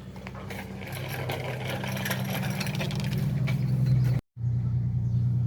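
A steady, low engine-like hum that grows louder, with light clinking and rattling over it for the first few seconds. The sound cuts out abruptly for an instant about four seconds in, then resumes.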